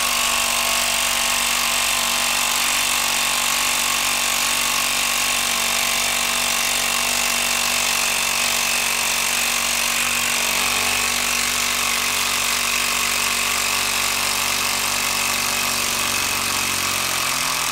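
Hilti 12-volt impact driver hammering continuously under heavy load as it drives a long TimberLok screw down into a wood stump. It makes a steady rattling buzz with no letup.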